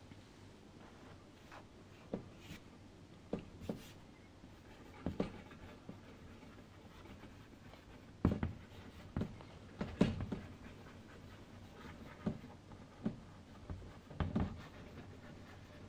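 Chalk writing on a chalkboard: a run of irregular short taps and scrapes as the letters are stroked out, growing louder and closer together about halfway through.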